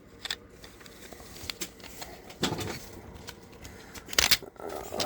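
Plastic model kit being handled: scattered light clicks and rubbing of plastic parts, with the sharpest click about four seconds in.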